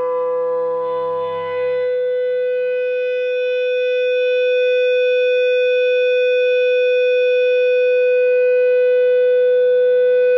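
A single guitar note, played loud at the glass's resonant pitch, held as one long steady tone. Its lower overtones die away after about two seconds while the high note carries on and grows slightly louder; it is being used to drive the glass into resonance.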